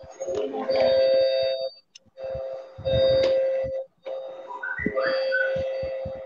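A steady electronic tone sounds in repeated blocks of about one and a half seconds with short gaps between them. Under it come rustles and knocks from a wired earphone microphone being handled.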